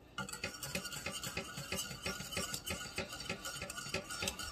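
Wire whisk stirring freshly added grits in a metal saucepan, the wires clicking and scraping against the pan in a quick, steady rhythm that starts a moment in.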